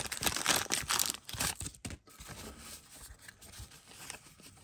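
The wax paper wrapper of a 1989 Donruss baseball card pack being torn open and crinkled, loud for about the first second and a half, then fainter rustling as the unwrapped cards are handled.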